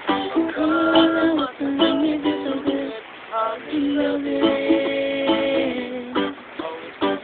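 Ukulele and guitar playing in an informal jam, with held melody notes ringing over the strumming.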